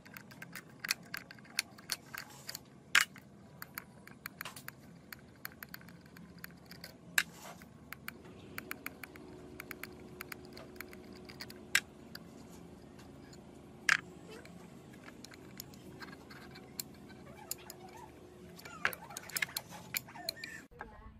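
Metal parts of a small four-stroke Rato petrol water-pump engine clinking and clicking as its crankcase is taken apart by hand: irregular sharp metallic taps, with a few louder knocks.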